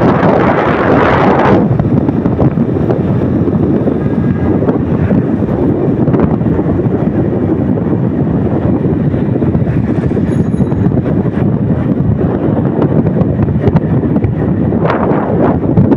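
Wind rushing over the microphone of a moving motorcycle: a loud, steady rumbling rush. The higher hiss thins out about a second and a half in.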